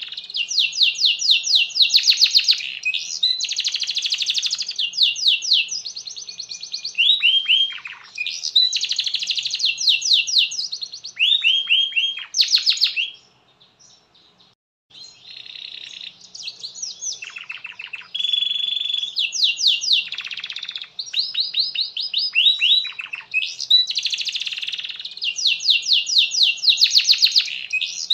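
Domestic canary singing a long, nearly unbroken song of fast rolls: rapid runs of repeated notes mixed with quick downward-sweeping notes. It pauses for about a second and a half roughly halfway through.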